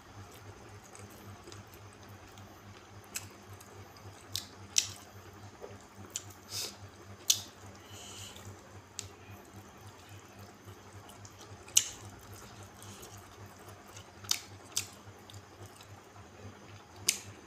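Close-up eating sounds: a man chewing rice and side dishes eaten by hand, with about ten sharp wet mouth smacks scattered a second or a few seconds apart, over a low steady hum.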